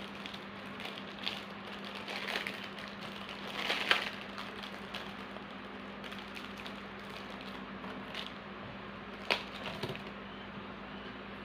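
Light clicking and rustling from hands packing small bird leg rings, with sharper clicks about 4 s in and again after 9 s, over a steady low hum.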